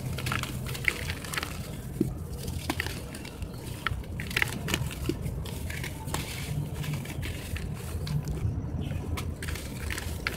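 Dry sand-cement blocks crumbled and crushed in wet hands: gritty crunching with many irregular small crackles.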